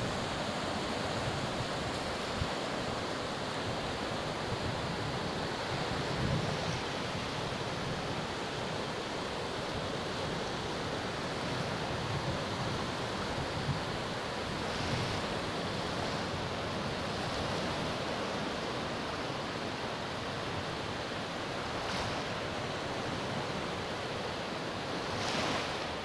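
Steady rush of small Baltic Sea waves breaking and washing up a sandy beach, with wind on the microphone.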